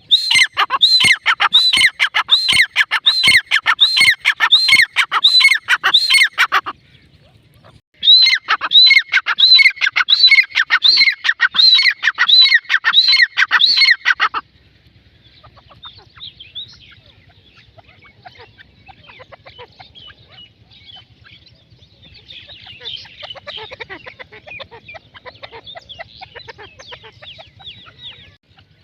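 Female grey francolin (teetar) calling: loud, sharp notes repeated about twice a second in two runs separated by a pause of about a second. About halfway through the calls give way to a long, much quieter stretch of softer chattering notes over a faint low hum.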